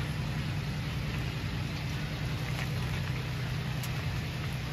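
Pickup truck engine running steadily at low speed while towing a canoe trailer, a low even hum over outdoor background noise.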